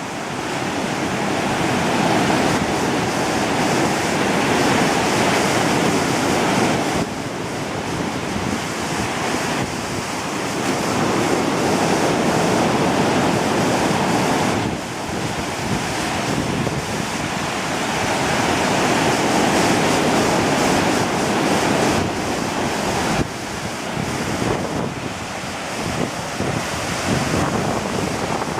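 Ocean surf breaking and washing onto a beach, swelling and easing in long stretches of several seconds, with wind noise on the microphone.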